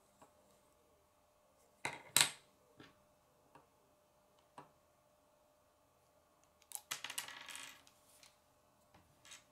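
Plastic K'nex pieces clicking and clattering as they are handled and snapped together. There are two sharp clicks about two seconds in and a few lighter ones, then a longer clatter of parts around seven seconds.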